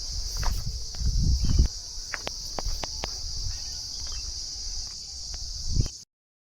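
Steady high-pitched insect chirring, with scattered clicks and low thumps, the loudest about a second and a half in; all sound cuts off about six seconds in.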